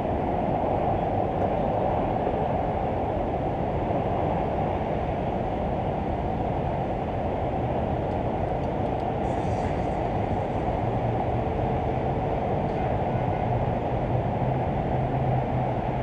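Steady rushing noise high up on a tower crane: wind over the microphone blended with the distant rumble of city traffic far below. A faint low hum joins in about eleven seconds in.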